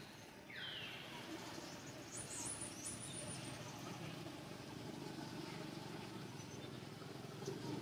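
Outdoor ambience: a steady background hiss with faint bird calls, one falling call about half a second in and a few brief high chirps around two to three seconds in.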